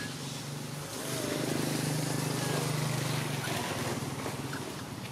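An engine running with a steady low hum, growing louder about a second in and easing off after about three and a half seconds, over a steady hiss.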